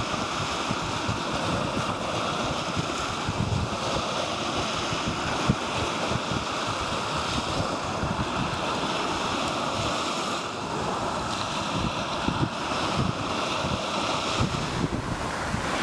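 Ocean surf washing onto a beach, with wind buffeting the microphone in uneven low rumbles.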